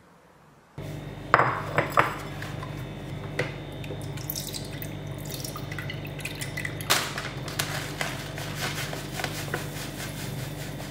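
Porridge being made at a kitchen counter: milk poured from a carton into a ceramic bowl and oats shaken in from a bag, with sharp clinks and knocks of the bowl and packaging. A steady low hum runs underneath, and it all starts about a second in, after a near-silent title card.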